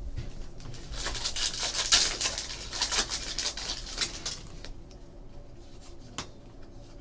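A foil trading-card pack being opened, its wrapper crinkling and crackling for a few seconds, then a few light ticks as the cards are handled.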